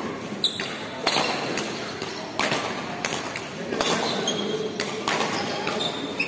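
Badminton doubles rally: rackets striking the shuttlecock in a quick exchange, several sharp hits roughly a second apart, with short shoe squeaks on the court floor between them.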